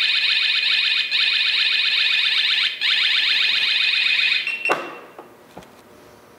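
Coocase topcase's motion-sensor alarm going off: a loud, shrill siren of rapid rising chirps, broken into bursts about every second and a half. It cuts off about four and a half seconds in as it is disarmed with the remote, followed by a click and a short beep.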